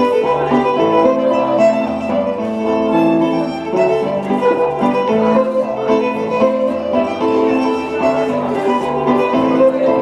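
Fiddle-led country dance tune with a plucked string accompaniment, playing at an even dance pace.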